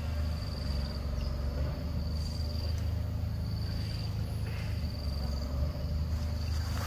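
Insects trilling on one high steady note that breaks off and starts again several times, over a steady low rumble.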